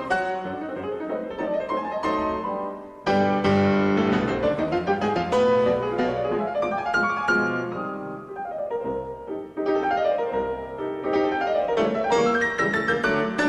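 Instrumental piano music with quick running passages of notes; it fades briefly just before three seconds in, then a new phrase comes in suddenly.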